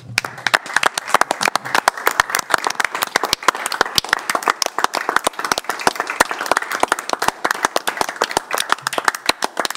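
Applause: a roomful of people clapping steadily.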